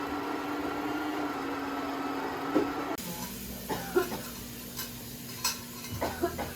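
A steady machine hum. It cuts off abruptly and is followed by a series of light clinks and taps of cups, dishes and cutlery being handled on a café table.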